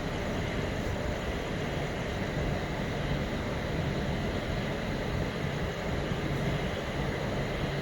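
Steady running rumble of ICF passenger coaches rolling over the track at speed, wheels on rails, with no horn.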